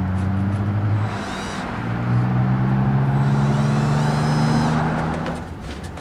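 A motor vehicle engine running with a steady hum. About two seconds in it rises a little in pitch and grows louder, then dies away near the end.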